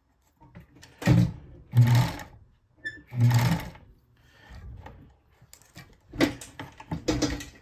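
Bonis Never Stop fur sewing machine stitching beaver fur and leather in short runs. It makes three bursts of about half a second each in the first few seconds, then a quicker cluster of short runs near the end.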